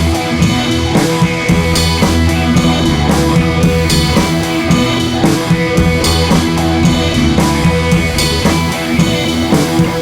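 Background rock music with drum kit, electric guitar and bass, a steady driving beat.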